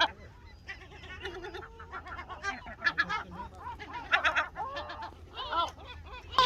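Gulls calling repeatedly: a quick run of short, harsh, pitched calls, one group after another.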